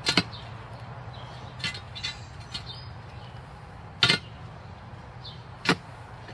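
Steel digging bar striking into the soil and stones of a fence post hole, giving sharp metallic clinks: one just after the start, one about four seconds in and one near the end, with fainter ticks between. The bar is shaving the side of the hole over so the post can move.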